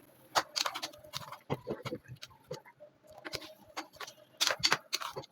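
A cooking utensil clicking and knocking irregularly against a pan as potatoes and eggplant are stirred and sautéed in masala.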